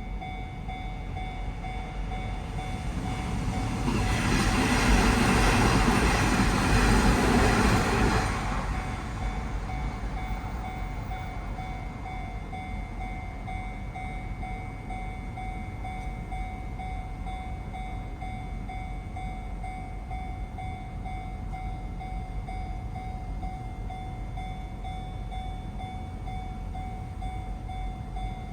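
Japanese level-crossing warning bell ringing steadily while an electric train passes through the crossing. The train is loudest for about five seconds, starting roughly three seconds in, and then the bell carries on alone.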